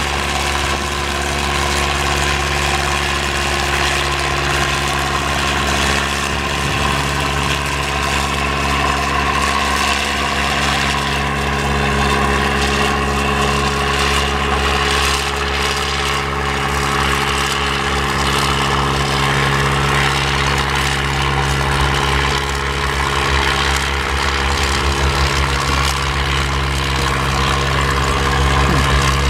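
Farm-stock tractor's engine running steadily under load while pulling a weight-transfer sled, at an even, nearly constant pitch.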